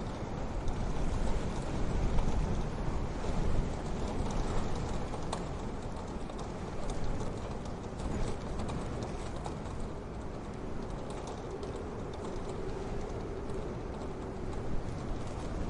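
Wood fire crackling in a wood-burning stove: scattered sharp pops and ticks over a steady low rumble.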